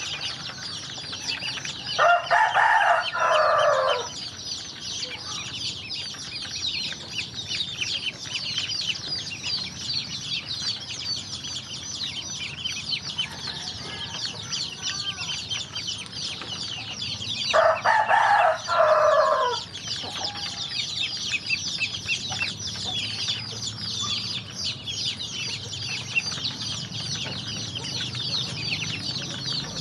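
A flock of ducklings peeping constantly in a dense, high-pitched chatter. A rooster crows loudly twice, once about two seconds in and again a little past halfway, each crow lasting about two seconds.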